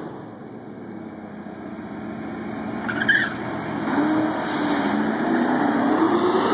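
Drag-racing cars, a Pontiac Trans Am and a Corvette, launching off the start line. Their engines rise steadily in pitch and grow louder as they accelerate down the strip.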